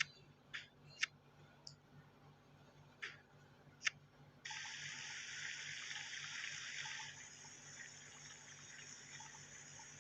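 A few sharp clicks, then water running from a tap starts suddenly about four and a half seconds in as a steady hiss, easing a little a few seconds later.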